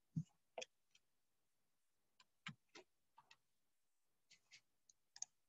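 Near silence with about ten faint, irregularly spaced clicks and taps, the loudest about two and a half seconds in and another near the end.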